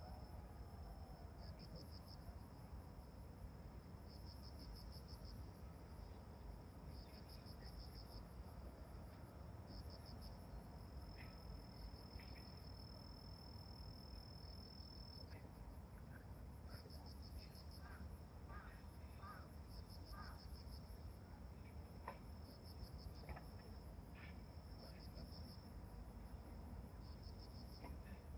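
Faint insects chirping in rapid pulsed trains, one holding a steady high trill for a few seconds near the middle, with a few short higher chirps about two-thirds in, over a low steady rumble.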